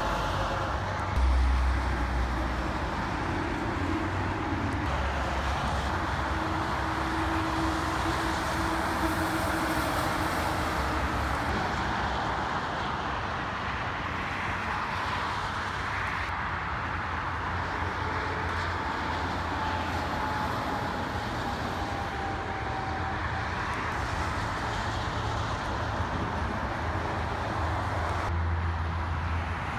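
Highway traffic: trucks and cars passing steadily with engine and tyre noise, and a louder low engine rumble swelling about a second in.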